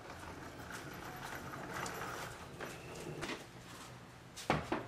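Footsteps in sandals and a wheeled suitcase rolling over wet pavement, in an uneven patter. Near the end comes a single sharp knock at a door.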